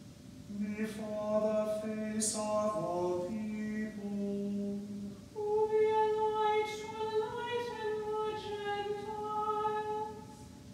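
Unaccompanied plainchant sung by two cantors in turn: a lower voice chants a phrase of held notes, then a higher voice answers with a second phrase a little after the middle.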